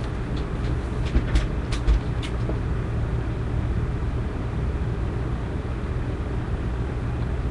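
Steady low background hum, with a few faint clicks in the first couple of seconds.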